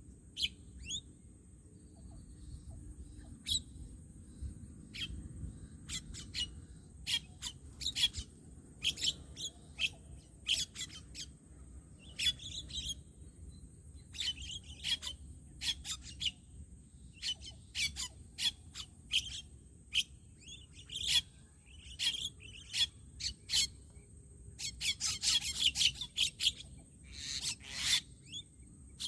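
Starlings (jalak) giving repeated short, harsh calls, with a dense flurry of calls about 25 seconds in.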